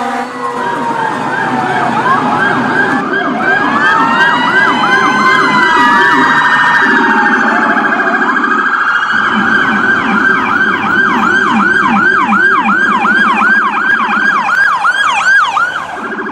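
Electronic emergency-vehicle sirens sounding several tones at once. Fast yelp-like sweeps go up and down about three times a second, over a slower wail that glides up and down in the first half, and the tones change a few times.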